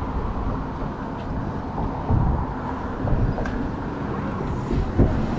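Steady low rumble of wind buffeting the microphone, with a few brief faint clicks.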